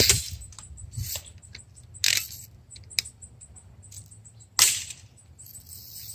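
BB guns firing and BBs striking the plastic casing of a gutted boombox: a handful of sharp, separate snaps and ticks about a second apart, the loudest about four and a half seconds in.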